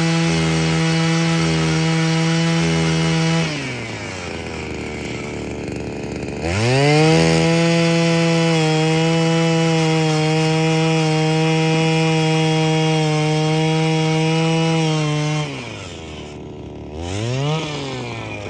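Power ice auger boring through lake ice, its motor running at a steady high speed. It winds down about three seconds in, speeds back up a few seconds later and holds steady, then slows again near the end after one short rev.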